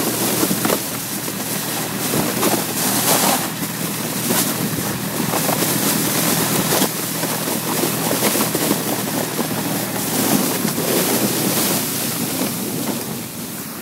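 Wind buffeting the microphone in gusts over a steady rushing hiss of a sled being towed fast across snow.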